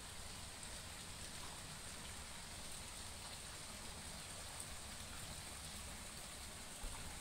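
Thin water jets of a small ornamental fountain splashing steadily into a shallow pool.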